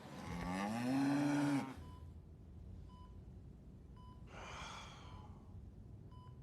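A man's loud gasping groan as he comes awake, rising then falling in pitch and cutting off sharply, then a softer breath a few seconds later. A hospital heart monitor beeps faintly about once a second.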